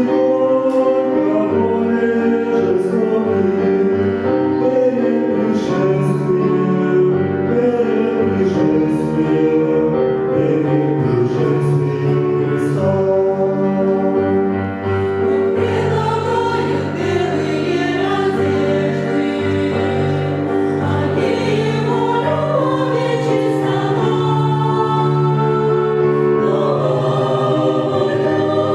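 Church choir singing a Russian-language Christian hymn in sustained, many-voiced harmony.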